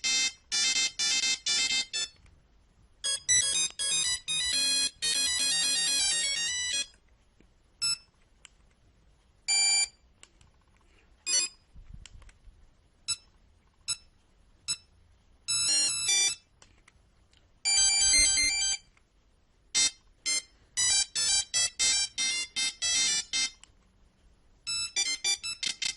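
Nokia 3310 monophonic ringtones: several short beeping tunes played in turn, some fast runs of notes and some sparse single beeps, with brief pauses between them.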